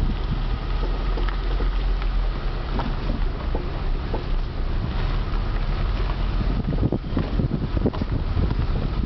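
Steady low rumble with wind buffeting the microphone, and scattered faint clicks.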